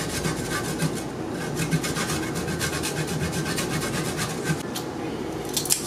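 Peeled ginger root being grated on a stainless-steel hand grater: a steady run of rasping back-and-forth strokes, with a louder flurry of strokes near the end.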